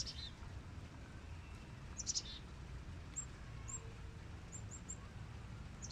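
Wild birds chirping faintly: one short chirp about two seconds in, then several brief, very high chirps, over a faint steady low background noise.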